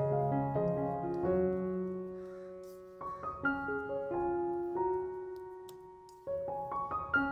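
Slow, soft solo piano music, with new notes struck about three seconds in and again near the end.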